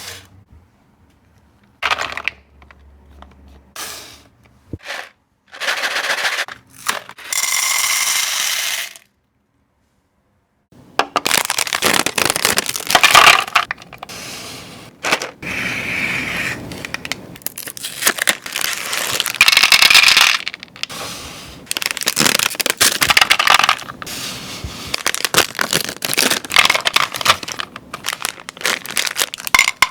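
Close-up handling of chocolates and wrapped candies on a platter: wrappers crinkling and tearing, chocolate cracking and snapping, and pieces clattering and scraping. It goes briefly silent about nine seconds in, then turns into dense crackling and crunching.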